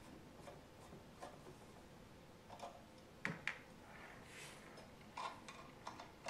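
Light clicks and ticks of a Phillips screwdriver and small metal screws as the Ecofan's motor-bracket screws are taken out, with two sharper clicks close together a little past three seconds in.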